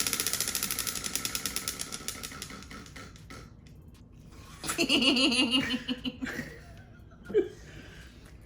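Prize wheel spinning down: rapid clicks of its pointer against the pegs, slowing and fading out over about three seconds as the wheel stops. About five seconds in comes a burst of laughter.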